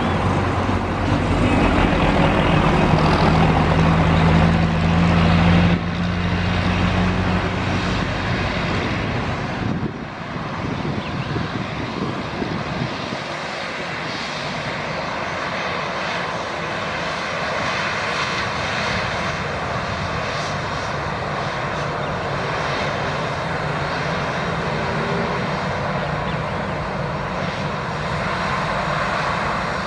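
Airbus A319 airliner's jet engines running as it moves along the runway: a steady jet rumble and hiss. The sound shifts abruptly twice in the first ten seconds and then stays even.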